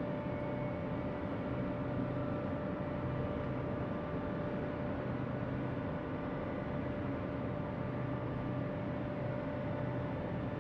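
Steady mechanical hum with a constant whine and a noisy rush, unchanging throughout: a room appliance or ventilation-type drone.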